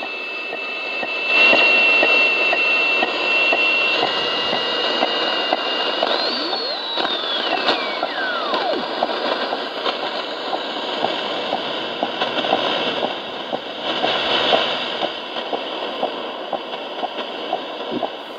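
Realistic DX-60 shortwave receiver being tuned across the band, playing through its built-in speaker: steady hiss with crackling static, and a high heterodyne whistle that holds steady, then sweeps down in pitch while another sweeps up as the dial passes a carrier, about a third of the way in.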